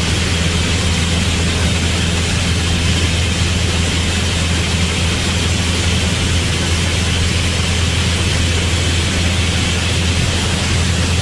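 Piper light airplane's piston engine and propeller droning steadily in cruise, heard inside the cockpit with a constant rush of air noise over it.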